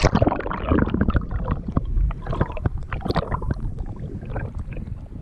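Lake water sloshing and gurgling around a camera held under the surface, heard muffled through the submerged microphone: a low rumble full of irregular clicks and knocks, with a sharp splash as it goes in.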